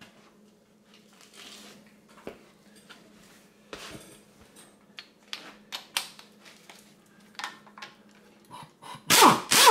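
Light scattered clicks and knocks of metal tools being handled at a Subaru EJ25 engine's cylinder head, over a faint steady hum. Near the end comes a short, loud burst as a cordless impact wrench runs a head bolt out.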